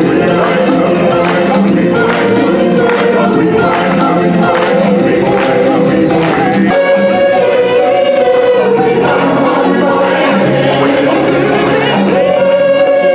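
Live stage-show music: a choir of voices singing over a band with drums. The drumming eases off a little over halfway through, leaving long held sung notes.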